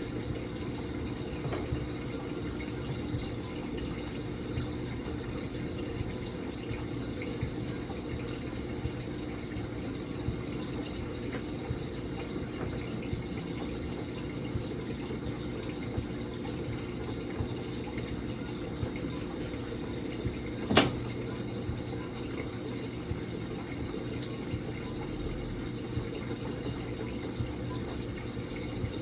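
Brastemp Clean washing machine running with water flowing through it, a steady hum under a rush of water. A single sharp click about 21 seconds in.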